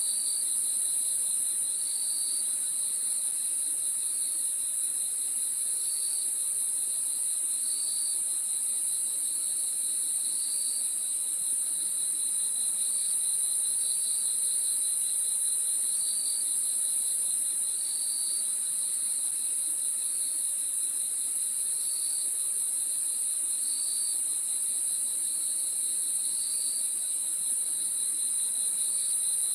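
Crickets chirping in a steady night chorus: a continuous high-pitched trill, with a lower chirp standing out about every two seconds.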